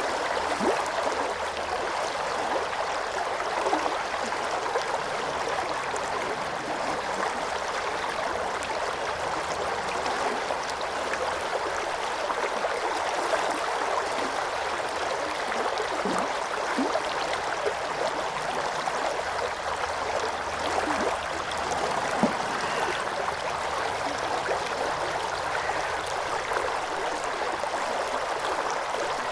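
River water flowing over rocks: a steady rush with small gurgles and splashes through it.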